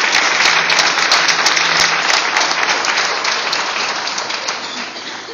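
Audience applauding, the dense clapping thinning out and fading away near the end.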